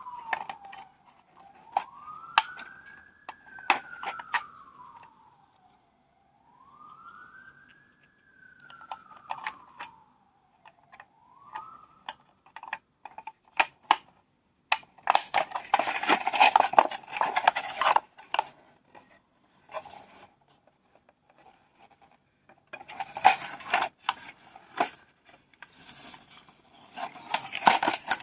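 A siren-like wailing tone rising and falling slowly about every two and a half seconds, dying out about twelve seconds in, over scattered plastic clicks. This is followed by two stretches of rustling and crinkling as toy packaging is handled.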